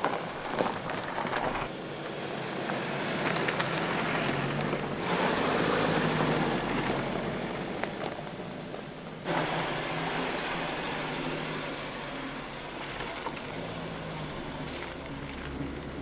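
Suzuki Jimny off-roader crawling over a dirt track, its engine running at low speed with tyre and suspension noise over rough ground. The sound changes abruptly a few times.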